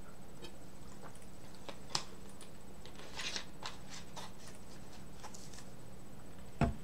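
Small handling noises: scattered light clicks and a brief rustle about three seconds in, then a single low thump near the end, over a steady low hum.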